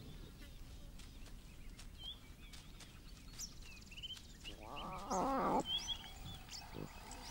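A lion growls once for about a second, about two-thirds of the way through, over faint bird chirps.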